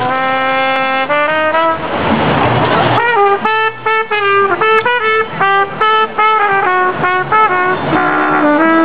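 Brass music: a horn melody of quick, short stepping notes, with washes of noise swelling about two seconds in and again near the end.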